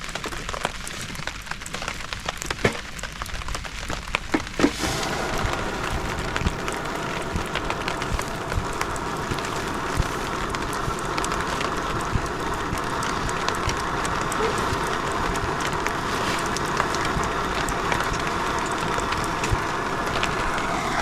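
Rain falling, with sharp scattered ticks of drops for the first few seconds, then a steadier, denser hiss from about five seconds in.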